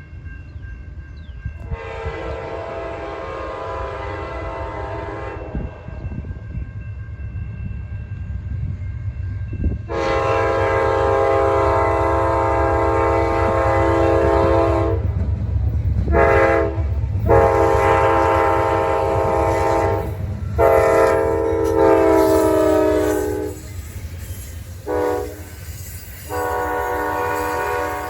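Amtrak train horn blowing a series of long blasts, each a chord of several notes, with shorter breaks between them, over the steady rumble of the passing train.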